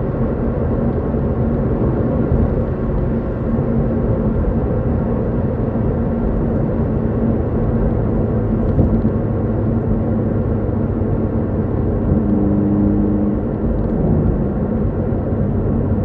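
Hyundai Veloster N's turbocharged 2.0-litre four-cylinder engine and exhaust running hard at speed, heard from inside the cabin over heavy road rumble. The engine drone is steady, then shifts in pitch a couple of times near the end.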